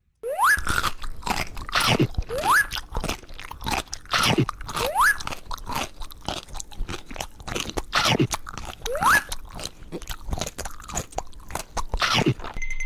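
Crisp crunching bites and chewing, one crunch after another, like crunchy fruit or vegetables being eaten. A short squeaky rising tone sounds four times among the bites.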